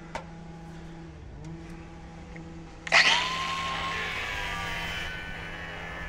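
A power tool starts with a loud onset about three seconds in, then runs with a steady whine, cutting through 16 mm armoured cable. A low steady hum sits under it beforehand.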